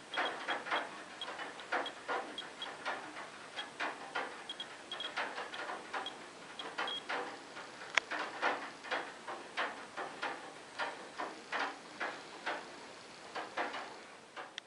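Radex RD1008 dosimeter giving short, high-pitched beeps at irregular intervals, each beep a registered particle, from radon decay products washed down by rain. Uneven knocks and handling noise run through it.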